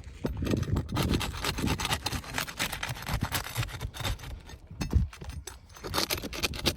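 Repeated scraping and rubbing strokes in an uneven run, with one sharp knock about five seconds in.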